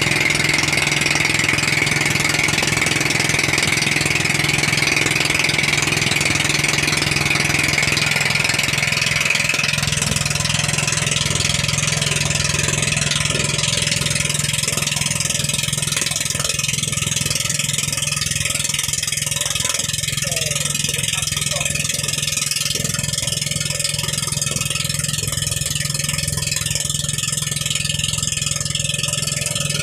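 Small boat's engine running steadily: a constant low hum under a wide hiss, with a high whine that fades away about ten seconds in.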